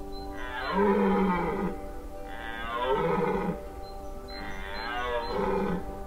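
Deer calling three times, each a drawn-out call of about a second and a half with a bending pitch, over a steady droning music bed.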